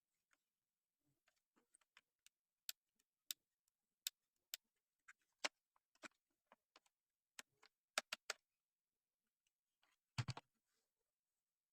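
Irregular sharp clicks and taps of small hard objects being handled, with a duller, heavier knock about ten seconds in.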